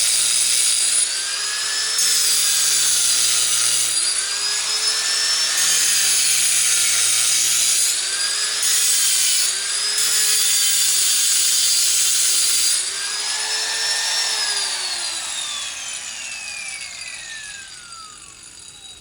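Sears disc grinder cutting rock with its abrasive disc: a harsh grinding hiss over a motor whine that sags and recovers about every two seconds as the disc bites and eases off. About thirteen seconds in the grinder is switched off and winds down, its whine falling steadily in pitch as it fades.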